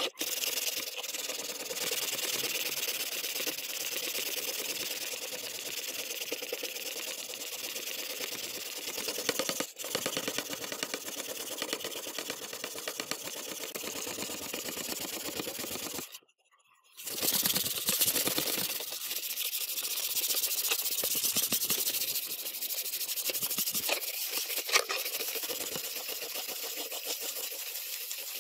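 Steady abrasive scrubbing or sanding, a dense rasping hiss made of rapid strokes. It cuts out abruptly for about a second partway through, then resumes.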